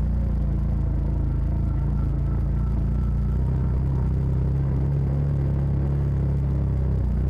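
Side-by-side UTV engine and drivetrain running steadily under way, a low drone whose engine note shifts about halfway through.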